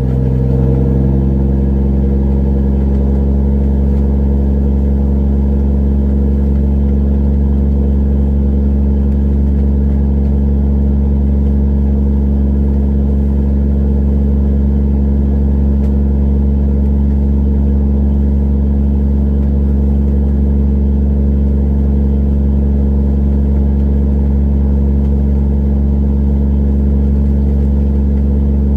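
Fishing trawler's engine running steadily, a deep, even drone whose pitch settles within the first second and then holds.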